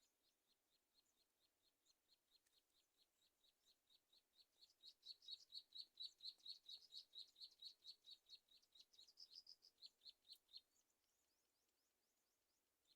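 Garden sunbird nestlings begging: a fast, even series of short, high chirps, about four a second. They grow louder midway and then stop.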